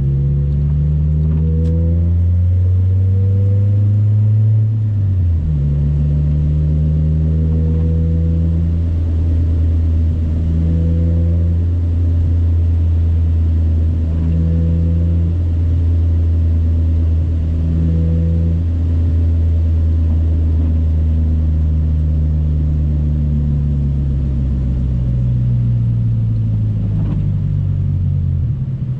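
Honda Civic EK coupe's four-cylinder engine, heard while driving. It pulls up through the revs, drops at a gear change about five seconds in, then cruises at steady revs before the revs fall away near the end.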